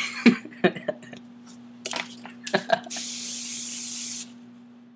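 An aerosol can spraying in one steady hiss for just over a second, after a few knocks and rustles of handling.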